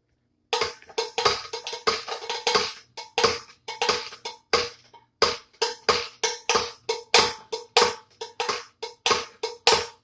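Homemade foot-pedal percussion instrument played in a quick, steady beat: a cigar box with a large tin can, a tongs pedal with a stirring spoon, and a rattle of bottle caps filled with screws and nails. The strikes start about half a second in, about four a second, each a sharp clack with a short pitched ring.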